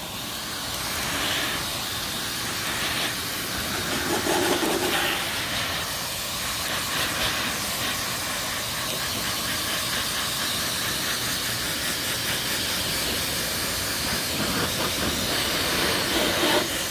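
Vacuum in blower mode, a steady rush of air from its hose nozzle aimed at a car's wet rear window, blowing the rain droplets off the glass.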